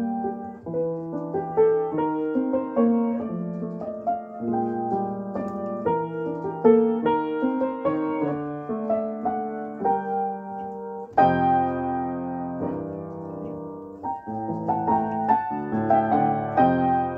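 Slow solo piano music, a run of gentle notes and chords, with a fuller, louder chord about eleven seconds in.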